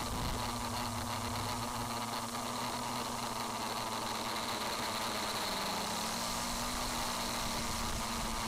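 Homemade multirotor drone's electric motors and propellers running steadily, recorded from its onboard camera: a constant whirring hum carrying a few steady whining tones.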